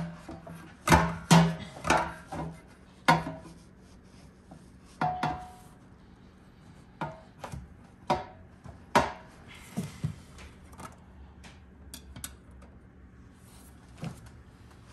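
Irregular knocks, clicks and clatter of hard plastic engine-bay parts being handled, several in quick succession at first and then more sparsely.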